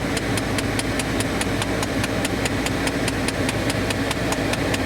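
Rapid, regular clicking from a broken HVAC blend-door actuator behind the driver's side dash of a 2012 Dodge Charger SRT 6.4, about five clicks a second, over the idling engine. The clicking is the sign of the actuator's stripped or broken gears slipping as it tries to drive the air door.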